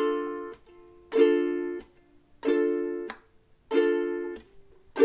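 Ukulele played with a single down-strum on each beat, about one strum every second and a quarter. Each chord rings for about half a second and is then cut short by a palm mute, the simple beginner's 'one down-stroke and a mute' pattern.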